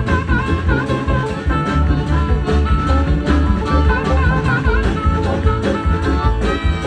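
Live string band playing an instrumental break: a lead line with bent, wavering notes over guitar, heavy bass and a steady beat.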